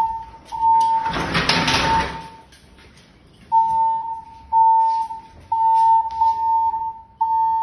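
Fire alarm voice-evacuation speaker sounding its alarm tone: a steady mid-pitched tone switching on and off in pulses of about half a second to a second, in groups with a longer pause between them. About a second in, a loud noisy rustle or scrape lasts roughly a second.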